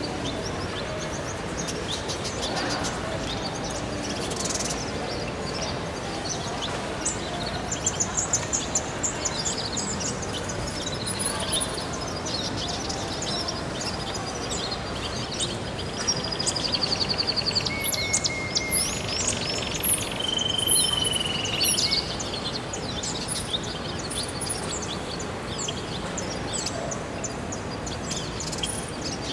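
Many small aviary birds chirping and twittering over a steady background hiss. The calls are busiest through the middle, with a few short held whistles among them.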